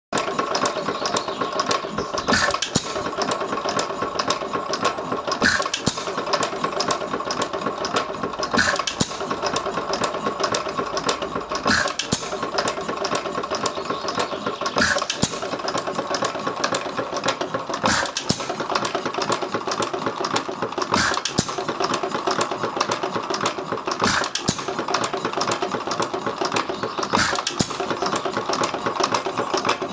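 1912 United 1½ hp single-cylinder stationary gas engine running hit-and-miss. It fires with a sharp bang about every three seconds and coasts on its flywheels between firings, with a steady mechanical clatter in between.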